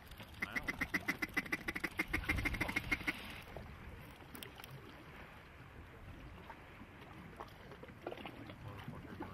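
A fast, even run of duck quacks lasting about three seconds, then only faint background.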